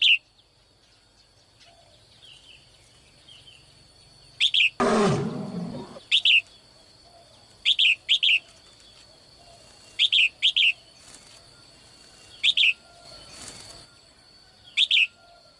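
Sharp bird chirps, singly or in pairs, every second or two. About five seconds in, a dinosaur roar sound effect, about a second long, sliding lower as it fades.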